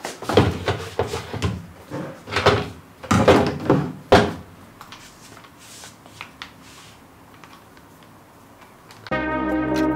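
Knocks and clunks of hand power tools, a paint sprayer with a plastic cup and an orbital sander, being picked up and set down on a plywood cabinet top: several sharp knocks in the first four seconds, then a few faint clicks. Music starts about nine seconds in.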